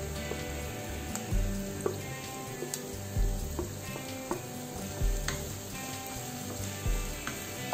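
Shredded cabbage, onion and carrot sticks sizzling in oil in a nonstick wok while a wooden spatula stirs them, with short taps and scrapes of the spatula.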